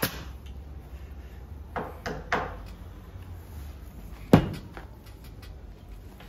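Knocks from re-upholstering a sofa back with a pneumatic staple gun: a sharp shot right at the start, three quick lighter knocks about two seconds in, and one loud thump a little past four seconds.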